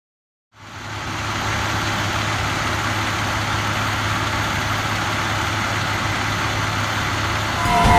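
Fire engine's diesel engine idling steadily with a low, even hum, coming in about half a second in after silence.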